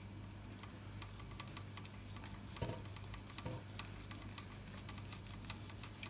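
Knife slicing through a cooked pork joint held with a fork, with faint crackly clicks and scrapes on a plastic cutting board and a couple of small knocks, over a steady low hum.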